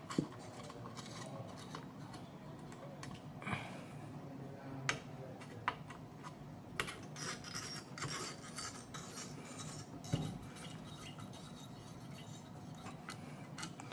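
Scattered small clicks, taps and light scraping of metal and plastic parts as a GTX 1050 Ti graphics card is taken apart, its cooler screws being worked loose.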